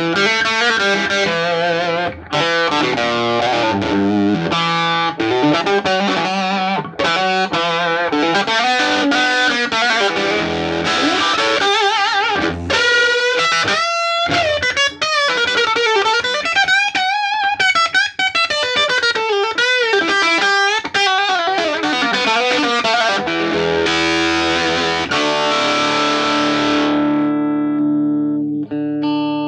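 Electric guitar played through a 1962 Fender 5F1 Tweed Champ tube amp. Busy picked lines give way to lead phrases with string bends and vibrato in the middle, and a chord is left ringing near the end.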